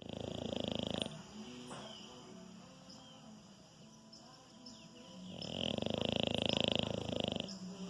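French bulldog snoring in its sleep: two pulsing snores, the first ending about a second in and the second, longer one lasting about two seconds near the end.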